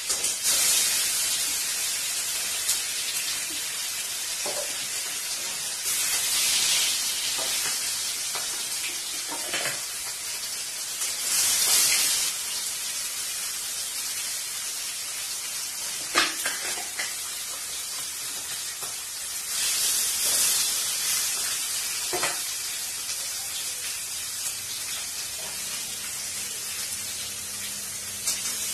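Pieces of pomfret fish sizzling as they fry in hot oil in a steel kadai, the hiss swelling loudly several times. A few sharp knocks of metal against the pan.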